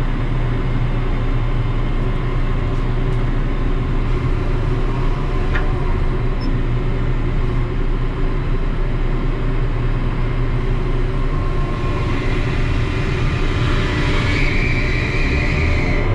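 Ship's deck crane machinery running, heard from inside the operator's cab: a steady low hum. About twelve seconds in, a higher hiss builds and then fades near the end.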